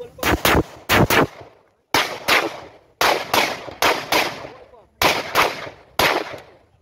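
A handgun fired about fifteen times, mostly in quick pairs a fraction of a second apart with pauses of up to a second between pairs: double taps on a course of fire at multiple targets. Each shot has a short echo trailing off.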